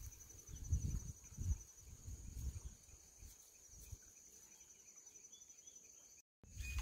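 Faint outdoor ambience: a thin, high insect trill, with a few low thumps and rumbles in the first three seconds, then very quiet.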